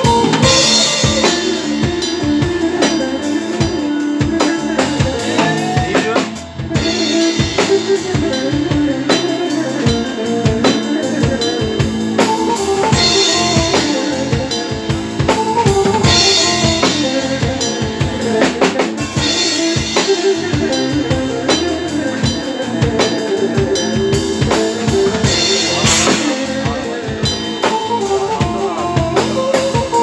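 Live band playing arabesk music, with a drum kit beating out a steady rhythm of bass drum and snare under the melody instruments. The music drops briefly about six seconds in, then carries on.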